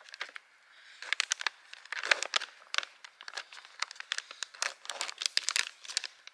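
Plastic food packet crinkling and crackling in the hands as it is pulled and torn open, in dense irregular bursts from about a second in.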